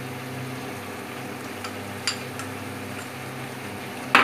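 Steady low hum of a Philips induction cooktop's cooling fan and coil under a steel kadhai. A small clink comes about two seconds in, and a sharp metal clink near the end as a spoon knocks khoya into the pan.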